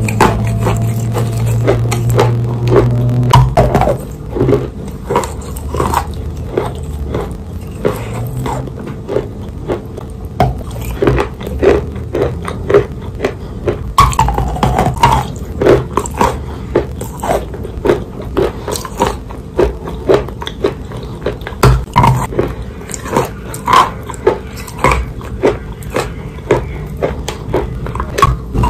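Soft wet chalk being bitten and chewed close to the microphone: a steady run of moist crunches, one every half-second to second.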